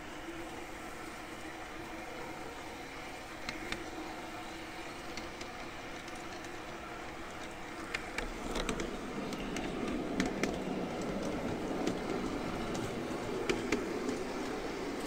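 Model RhB garden-railway train running along its track, with a steady running hum and sharp clicks from the wheels on the rails. About eight seconds in it grows louder and rougher as it runs over points.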